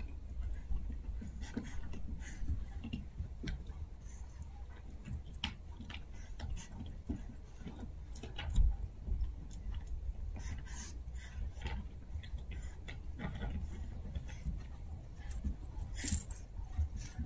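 Two Chihuahua puppies mouthing, tugging and nosing through plush and rope toys: irregular small clicks, rustles and chewing sounds, with a brighter rustle near the end, over a low steady hum.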